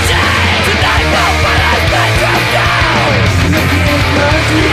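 Loud punk-metal band recording with distorted electric guitars playing at full level, no break in the sound.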